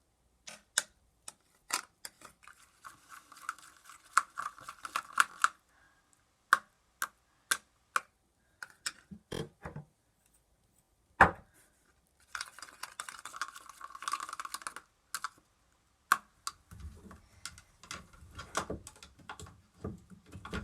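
A mixing tool clicking and tapping against a bowl while slime is stirred, with two stretches of quicker scraping, one about two seconds in and one about twelve seconds in.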